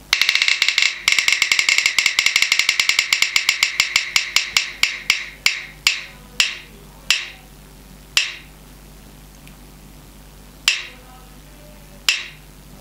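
Spin-the-wheel app on a smartphone playing its ticking sound effect as the wheel spins: rapid clicks that slow steadily as the wheel spins down, the last few ticks a second or more apart.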